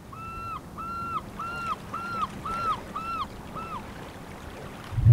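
A bird calling: a run of about eight short, evenly spaced whistled notes, each rising and then falling, which stops about four seconds in.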